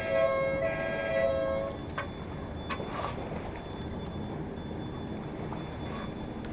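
A two-tone siren going back and forth between a lower and a higher pitch, stopping about two seconds in. After that only wind and water noise, a few light knocks and a faint steady high tone.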